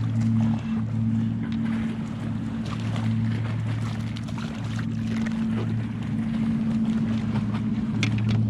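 A steady low mechanical hum that swells and dips every second or two, with faint scattered clicks.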